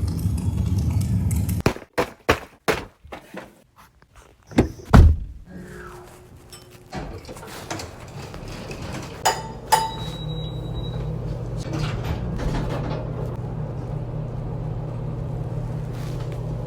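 A steady low hum, broken by a run of sharp knocks and one heavy thunk, after which a steady low hum starts up again and runs on with a few light clicks over it.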